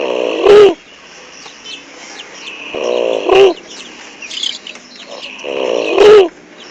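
Heavy snoring: three rattling snores, one about every three seconds, each ending in a loud snort. Birds chirp faintly in the background.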